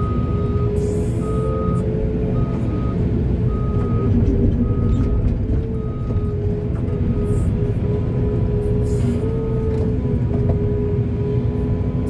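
Heavy construction machinery engine running steadily, with a reversing alarm beeping about once a second that stops near the end.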